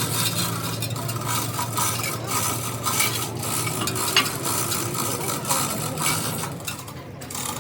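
Small metal parts clinking and scraping in quick, irregular succession over a steady low hum.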